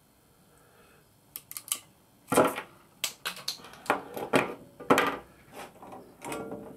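Crimping pliers clicking and clacking as they close on a small wire terminal, with tools knocking on the workbench as they are put down. The sharp clicks start a little over a second in and come irregularly, several of them loud.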